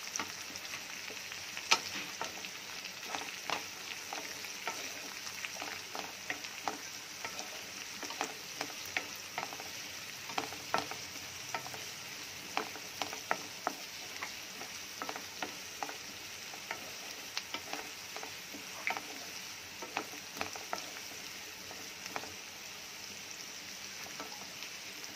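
Chopped onions, shallots and garlic sizzling in hot oil in a nonstick pan while a wooden spatula stirs them, with frequent light knocks and scrapes of the spatula against the pan; one knock about two seconds in is the loudest.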